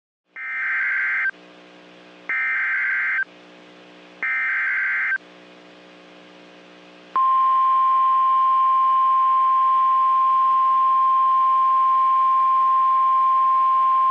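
NOAA Weather Radio Emergency Alert System activation: three bursts of SAME digital header data, each about a second long and about a second apart, then the steady 1050 Hz warning alarm tone starting about seven seconds in. It signals a new warning, here a severe thunderstorm warning.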